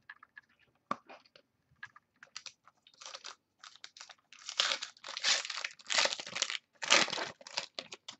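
Wrapper of a football trading-card pack being torn open and crinkled by hand: a few light rustles and clicks at first, then steady dense crinkling from about three seconds in.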